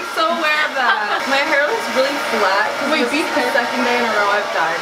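Handheld hair dryer running steadily, blowing on wet hair, with voices talking over it.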